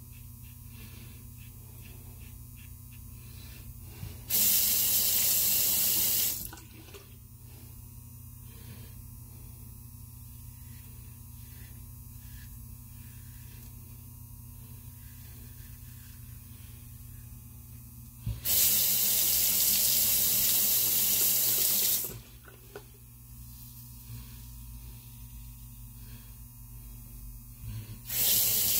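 Tap water running into a sink in three short spells, about two seconds, three and a half seconds and one second long, as a single-edge safety razor is rinsed. Between them, faint short scrapes of the razor through stubble.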